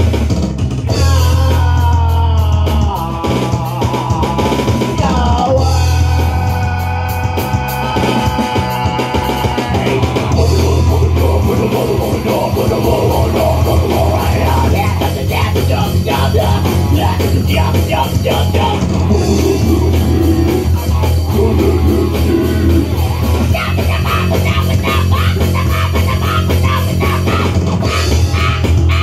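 Live rock jam: an electric guitar and an electronic drum kit playing a steady beat, with a man singing into a microphone over them.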